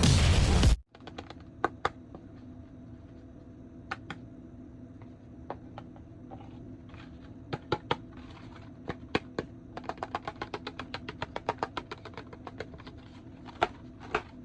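Loud music cuts off within the first second. Then comes a run of small, sharp clicks and taps from toys and their packaging being handled, sparse at first and rapid in the second half.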